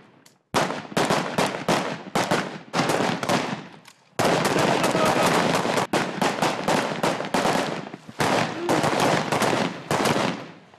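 Kalashnikov-pattern assault rifles firing in rapid automatic bursts, several guns at once. The fire breaks off briefly about four seconds in, then runs on unbroken for several seconds before dying away near the end.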